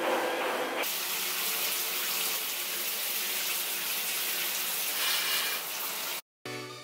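Shower running: a steady hiss of water spraying into a bathtub, starting about a second in and cutting off near the end, where music begins.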